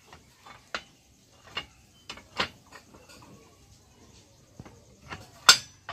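A few sharp metal clinks and knocks as the die of a chain-link fencing machine is moved and fitted by hand against its mount, the loudest about five and a half seconds in.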